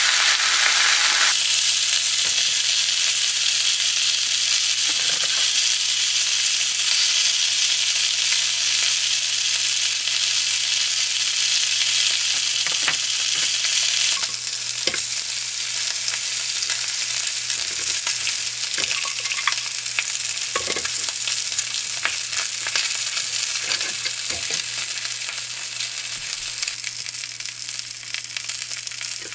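Salted mackerel frying in oil in a pan: a steady sizzling hiss with scattered pops of spitting oil, a little quieter from about halfway.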